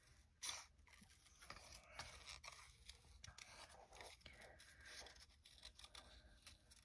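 Small scissors snipping faintly through paper, many short irregular snips as the paper is turned, with a slightly louder snip about half a second in.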